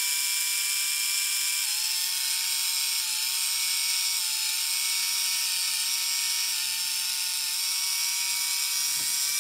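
Open-frame electric motor of a 1950s Gilbert HO-scale ALCO DL600 diesel locomotive running on bench power, turning its worm and nylon gears with a steady whine. The pitch dips slightly a little under two seconds in. The freshly oiled and greased mechanism is running smoothly and turning freely.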